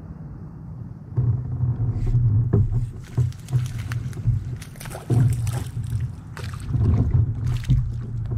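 A hooked bass fought beside a kayak, with irregular splashes and knocks as it thrashes at the surface, over a steady low hum that grows stronger about a second in.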